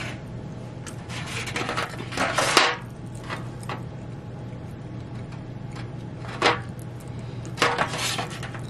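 Takeout food containers being handled: a paper bowl and an aluminium foil tray scraping and crinkling, with a black plastic fork, and a few sharp clicks in between. The longest scraping comes about a second in, and another comes near the end.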